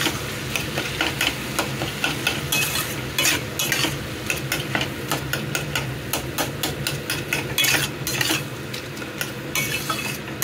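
Metal spatula stirring and scraping diced white gourd around a stainless steel kadhai in quick, irregular strokes, with the cooking vegetables sizzling.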